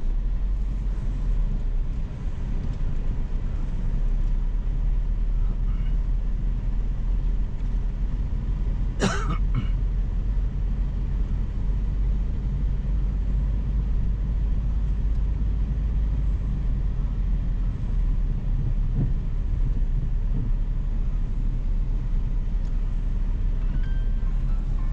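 Steady car engine and road noise heard from inside the car while driving, with one brief vocal sound about nine seconds in.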